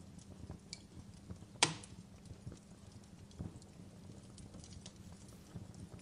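Fireplace crackling: a low steady rumble with scattered irregular pops and one sharp, louder pop about a second and a half in.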